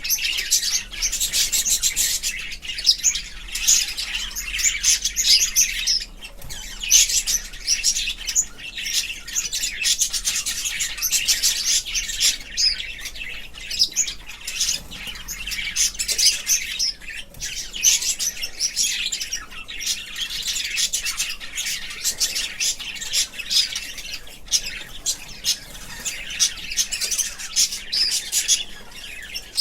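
Budgerigars chirping and chattering, a steady stream of rapid high chirps and warbles with only brief pauses.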